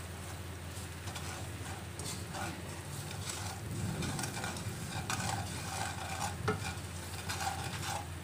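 Wooden spatula stirring and scraping in repeated strokes across a stone-coated wok, with a sizzle from garlic, coriander roots, pepper and brown sugar frying in the pan.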